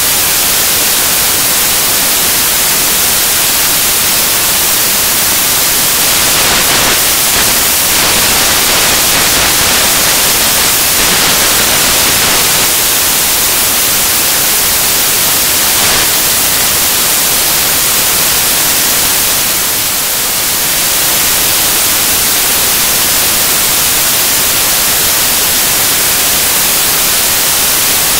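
Loud, steady static hiss like white noise, strongest in the treble, with no distinct sound standing out of it.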